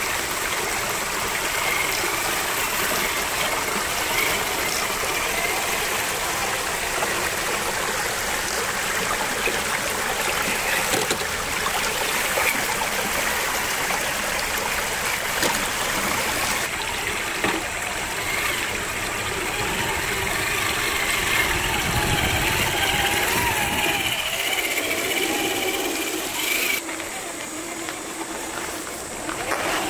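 Traxxas TRX-4 RC crawler's electric motor and geared drivetrain whining, rising and falling in pitch with the throttle, over the steady rush of a shallow rocky creek as the truck drives through the water. Near the end the water sound drops away.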